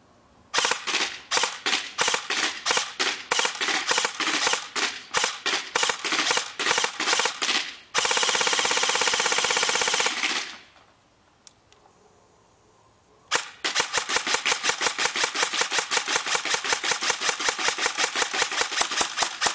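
G&P M4 Stubby Killer airsoft electric rifle (AEG) firing BBs. It begins with quick clusters of rapid shots, then fires one unbroken full-auto burst of about two seconds. After a pause of about three seconds comes a long string of evenly spaced shots, several a second.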